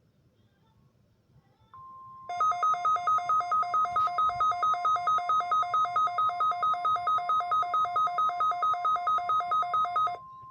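NOAA Weather Radio's steady warning alarm tone starts about two seconds in, and a moment later a Midland WR120EZ weather alert radio sounds its own alarm over it as loud, rapid beeping, about four to five beeps a second. The beeping stops shortly before the steady tone cuts off near the end. This is the weekly test of the warning alarm.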